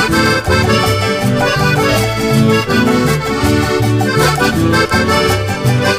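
Instrumental music with a steady beat over a stepping bass line.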